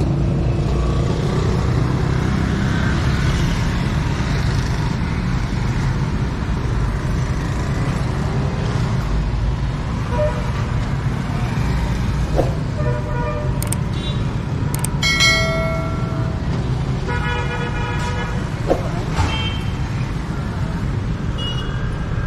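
Steady rumble of road traffic, with several vehicle horns honking in the second half, the longest and loudest about fifteen seconds in.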